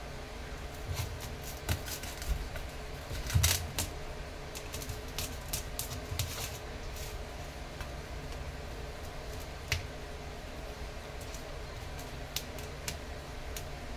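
A knife cutting soft barfi in a steel plate, its blade clicking and scraping on the metal in irregular taps, loudest about three and a half seconds in.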